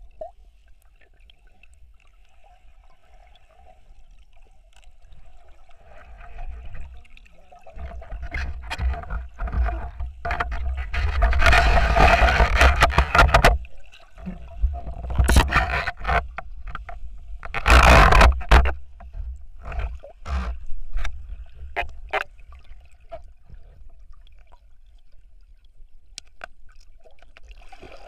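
Underwater sounds around a spearfisher's camera in a river: knocks and scrapes from handling the gear, with loud rushing bursts of water and bubbles near the middle and again a few seconds later. A faint steady tone runs under it.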